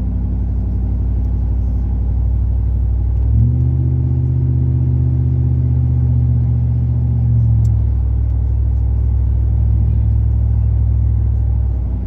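Pickup truck's exhaust note through an 8-inch Cherry Bomb glasspack, with the catalytic converters still in place, giving a low, steady drone while cruising at about 35 mph with the window down. About three and a half seconds in the pitch steps up, holds for about four seconds, then drops back.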